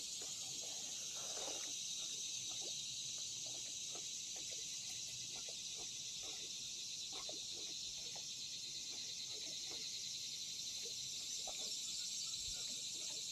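Steady high-pitched chorus of insects such as crickets, with faint scattered ticks below it.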